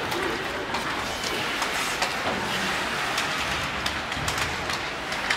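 Ice hockey play: skate blades scraping across the ice, with frequent sharp clacks of sticks and puck.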